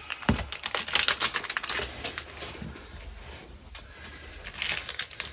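Clear plastic packaging crinkling and crackling as items in cellophane sleeves are handled and set down on a desk. The crackling is dense for about the first two seconds, thins out, then comes again briefly near the end.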